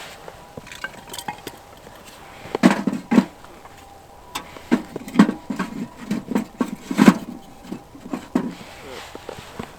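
Irregular knocks and clicks of objects being handled, about a dozen over several seconds, the loudest a little over two seconds in and again around seven seconds.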